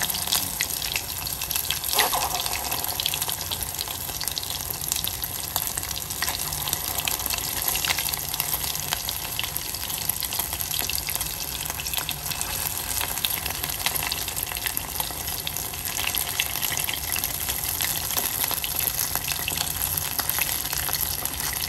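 Battered dory fish fillet pieces deep-frying in hot oil in a small saucepan: a steady sizzle full of fine crackles, with one louder crackle about two seconds in.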